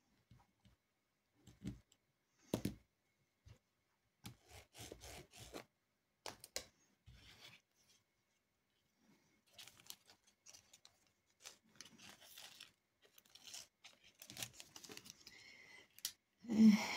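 Scattered small clicks, taps and plastic rustles of diamond painting work: the drill pen, the plastic drill tray and the canvas being handled. A louder bump and rustle comes near the end.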